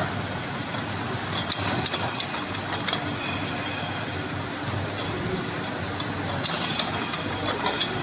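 Automatic bottle brushing machine running: a steady mechanical hum and hiss, with short bursts of high-pitched metallic clatter and squeal about a second and a half in and again near seven seconds.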